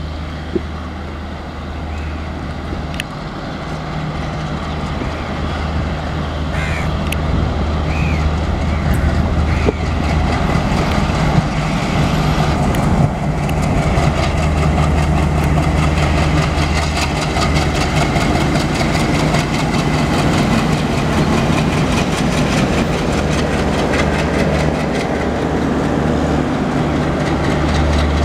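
Diesel locomotive hauling a passenger train, its engine's low steady drone growing louder as it approaches and passes. In the second half the coaches' wheels clatter rhythmically over the rail joints, and crows caw a few times early on.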